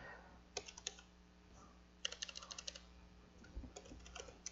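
Faint typing on a computer keyboard: a couple of keystrokes, then a quick run of taps about two seconds in, and a few more scattered taps near the end.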